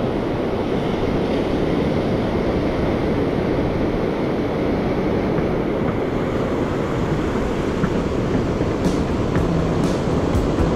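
Steady rumbling noise of wind on the microphone and ocean surf, with a few light clicks near the end.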